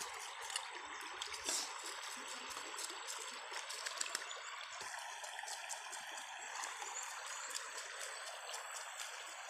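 Shallow stream running steadily over stones, with faint scattered clicks over the water noise.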